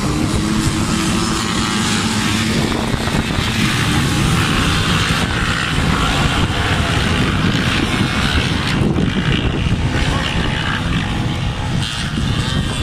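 A pack of off-road dirt-bike engines revving hard together at a mass race start, making a dense, unbroken engine noise.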